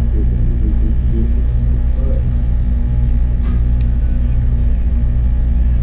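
Steady low hum and rumble filling the room, with faint voices in the background and a couple of faint clicks about three and a half seconds in.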